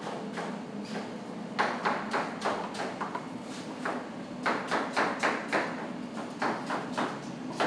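Kitchen work: a quick run of sharp taps and knocks, several a second in clusters, starting about a second and a half in.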